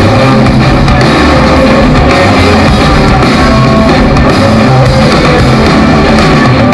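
Live rock band playing an instrumental passage: electric guitars and drum kit, loud and continuous.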